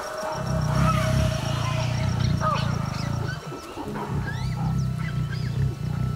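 A lioness's low growling rumble in two long stretches of about three seconds each, with a short break between them, over faint bird chirps.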